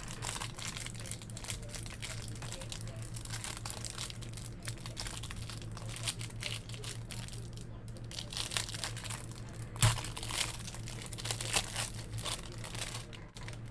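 Clear plastic wrapper of a trading-card hanger pack crinkling and tearing as it is opened and pulled off by hand, with one sharp click about ten seconds in. A steady low hum runs underneath.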